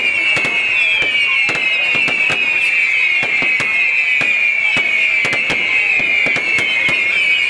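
Fireworks going off: many overlapping high whistles, each falling slightly in pitch, over a steady rapid run of sharp cracks and bangs.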